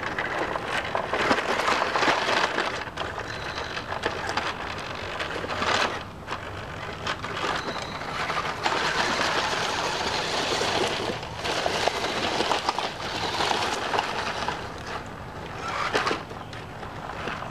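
New Bright RC rock crawler's electric motor and gearbox whirring as it drives and climbs over stones and leaf litter, in spurts with short pauses every few seconds as the throttle is let off.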